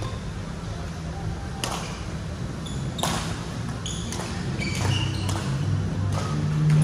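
Badminton rally: two sharp racket strikes on the shuttlecock about a second and a half apart, with short squeaks of court shoes on the floor, over a steady low hum.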